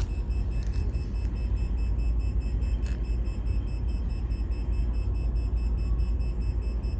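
Redbox DVD rental kiosk beeping: a short high-pitched beep repeating rapidly and evenly, several times a second. A steady low rumble lies under it.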